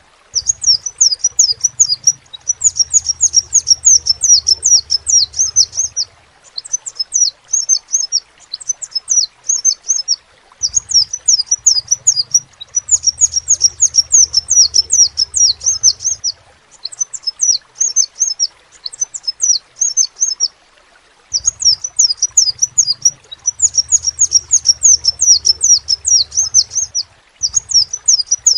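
Crimson sunbird singing: rapid strings of high, thin, chirping notes in runs of a few seconds, broken by short pauses.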